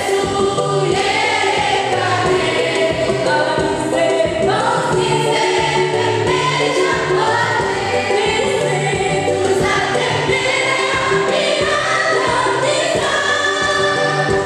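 A youth choir singing a gospel song together, amplified through handheld microphones, with many voices at once and no break.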